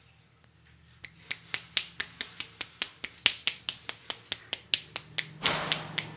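Barber's hands making sharp clicking snaps in a quick, even rhythm, about four to five a second, starting about a second in, typical of the tapping and snapping in an Indian head massage. A short rustle of rubbing sounds near the end.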